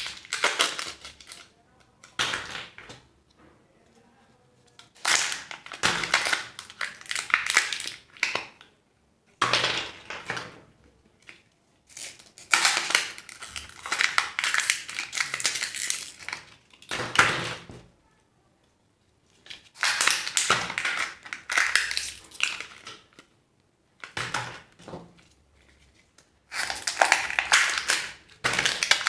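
Crinkly plastic and foil wrappers of surprise eggs and candy packets being torn open and handled, in crackling bursts of a few seconds with short pauses between.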